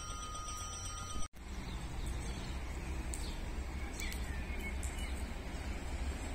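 Steady low rumble of wind on the microphone over outdoor railway-station ambience, with a few faint bird chirps about four seconds in. Thin high steady electronic tones cut off at a brief dropout just over a second in.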